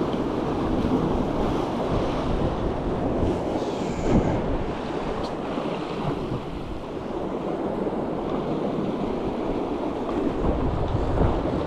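Sea surf washing against rocks, with wind buffeting the microphone. A short knock about four seconds in.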